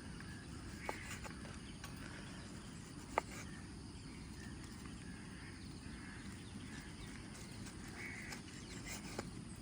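A few sharp knocks, the loudest about three seconds in, over a steady low outdoor rumble.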